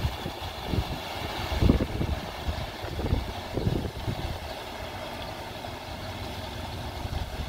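Large SUV driving slowly through ankle-to-hubcap-deep flood water, its engine running and its tyres sloshing and splashing through the water, fading as it moves away.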